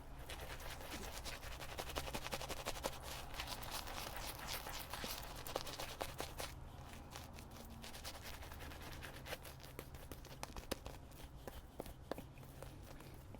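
Shaving brush working a wet lather of shaving soap, a dense, crackly, squelching swish that is busiest midway through.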